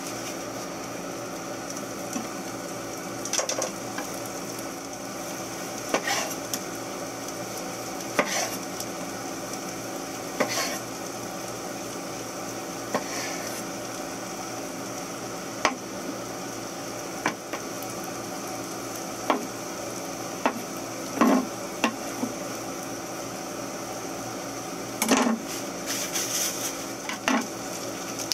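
Onions sizzling steadily in a frying pan, with a chef's knife knocking on a wooden cutting board about every two seconds as tomatoes are sliced, and a quicker run of knocks near the end as they are diced.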